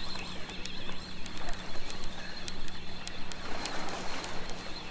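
Outdoor riverside ambience: a steady low hum under faint scattered ticks, with a short rise of rustling hiss about three and a half seconds in.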